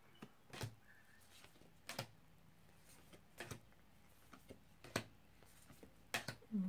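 Oracle cards being handled at a table: about five short taps and soft card sounds, roughly one every second and a half, as cards are set down and picked up.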